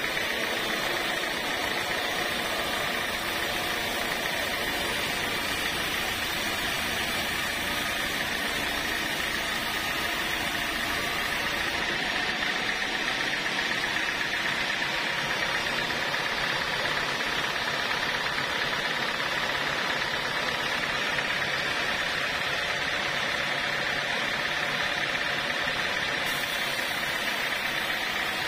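Band sawmill running steadily, its blade cutting lengthwise through an acacia wood beam.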